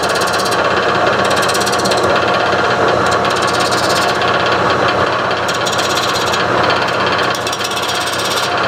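Wood lathe running steadily at speed, spinning a wooden blank while a pencil held on the tool rest marks layout lines on it.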